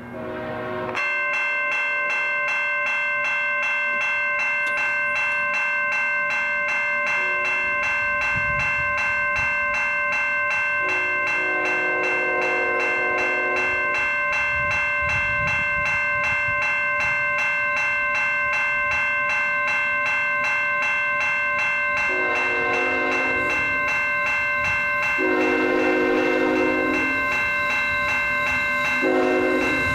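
Railway crossing bell starts about a second in and rings steadily as the crossing signals activate. A fainter approaching locomotive horn sounds over it in several blasts, the longest around the middle and near the end.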